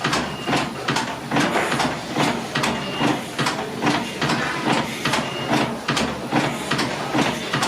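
Fowler K7 steam ploughing engine working under steam, its exhaust chuffing in an even beat of about three to four sharp hissing puffs a second.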